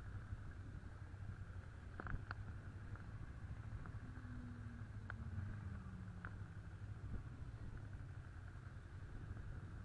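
Honda CB500's parallel-twin engine running at low riding speed: a steady low drone, with a few faint ticks.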